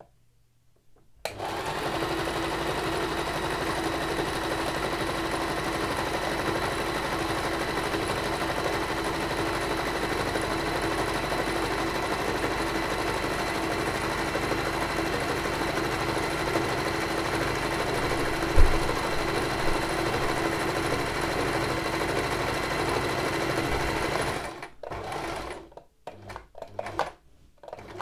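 Singer Tradition domestic sewing machine running at a steady speed, stitching through layered fabric. It starts about a second in, with a single sharp knock partway through, and stops near the end, followed by a few light clicks.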